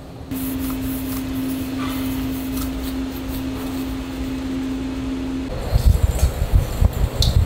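A steady machine hum with one low tone, like a kitchen fan or appliance motor, starting suddenly and cutting off about five and a half seconds in; irregular low rumbling thumps follow.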